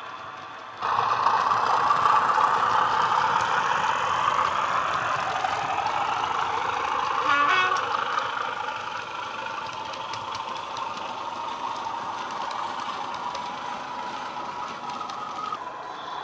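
Sound decoder in a Hornby Class 31 model locomotive playing a diesel engine sound through its small speaker. The engine note jumps suddenly louder about a second in, as if powering up, then settles down. A short pitched sound comes just past halfway, and faint ticks run alongside.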